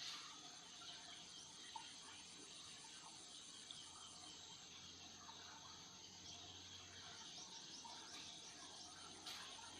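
Faint outdoor ambience of insects chirping steadily, with a few small ticks.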